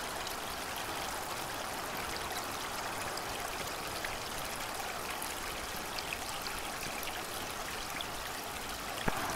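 Steady rushing of a creek, an even wash of water noise with no pauses, and a single sharp click near the end.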